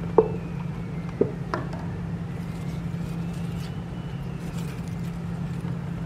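A steady low hum with a few light clicks and taps in the first two seconds as a glue stick and paper are handled and set down on a tabletop.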